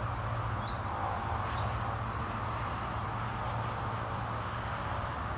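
Outdoor rural ambience: a steady low hum under a light haze of background noise, with short high chirps about every half second, like a small bird or insect.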